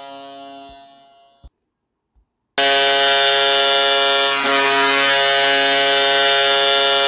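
Recorded ice hockey goal horn from a goal horn app. One horn's tail fades out over the first second and a half and ends in a click. After about a second of silence, another goal horn starts about two and a half seconds in, a loud steady low chord with a short dip about two seconds after it begins.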